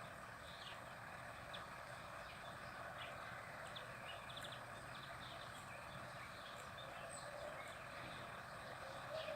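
Faint outdoor ambience: a steady hiss with many short, high chirps or clicks scattered throughout.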